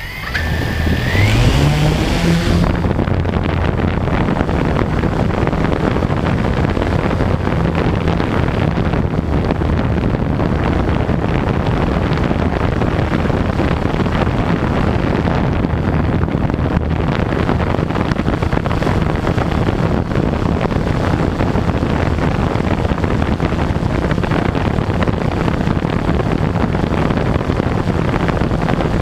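Quadcopter drone's motors spinning up with a rising whine over the first couple of seconds, then a steady propeller buzz as it flies.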